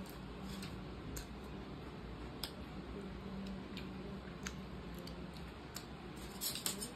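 Scattered light clicks of a person eating from a plastic thali tray with a plastic spoon, with a short crinkle of aluminium foil near the end as a roti is pulled from its foil wrap.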